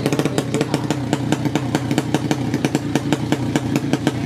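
Race-tuned 200cc underbone drag motorcycle engine running steadily, its open exhaust giving a rapid train of sharp pops.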